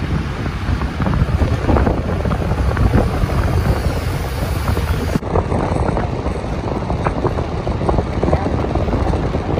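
Wind buffeting the microphone at the open window of a moving bus, over the bus's road and engine noise.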